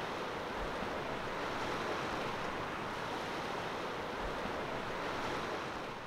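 Steady wash of ocean surf and wind, an even rushing noise with no distinct breaks.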